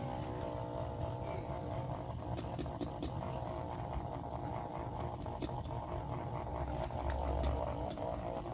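A small electric motor running with a steady buzz, with a few faint clicks over it.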